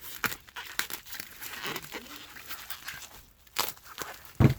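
Packaging rustling and crinkling, with scattered small clicks, as items are lifted out of a box; a single thump near the end is the loudest sound.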